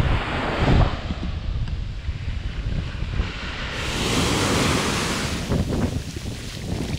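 Wind gusting on the microphone. From about halfway, ocean surf: waves breaking and foamy water washing up the sand, with the wind still on the microphone.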